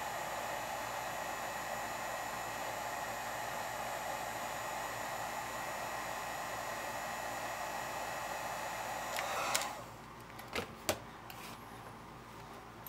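Wagner heat gun blowing steadily, warming gummed-up old oil in a sewing machine's mechanism; it switches off about nine and a half seconds in. Two sharp knocks follow about a second later.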